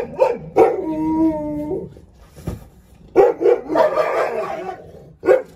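Alaskan malamutes barking territorially at a stranger at the gate. Two quick barks are followed by a drawn-out howling call lasting about a second. From about three seconds in comes a dense stretch of rapid barking, and one last bark comes near the end.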